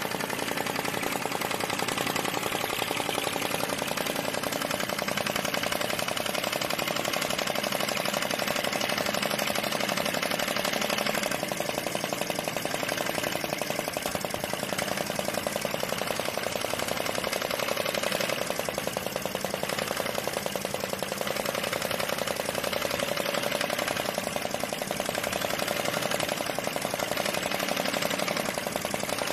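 Model Stirling engine tractor running on a stand, its flywheel and linkage giving a fast, even mechanical ticking.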